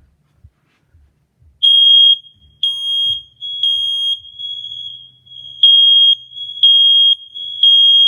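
First Alert smoke and carbon monoxide alarm sounding under its test button: loud, high-pitched beeps, each about half a second long, in two groups of three with a short pause between, starting about a second and a half in. This is the three-beep smoke alarm pattern. A fainter tone at the same pitch carries on between the beeps.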